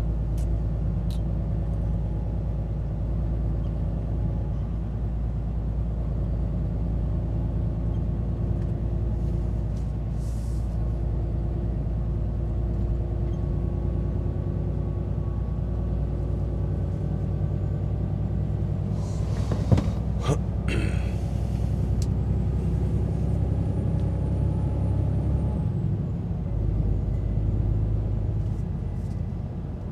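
Scania timber truck's diesel engine running steadily at low revs. About twenty seconds in there is a sharp click and a brief hiss of air, like an air-brake release. The engine note drops and eases off near the end.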